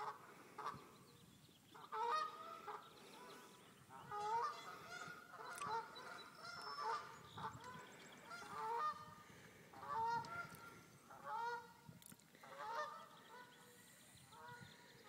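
Geese honking, call after call in short bursts every second or two.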